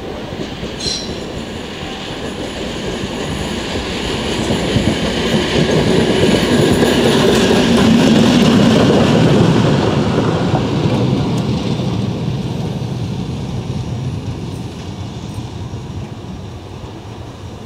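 A train passing by, its wheels clattering over the rails, growing louder to a peak about halfway through and then fading away.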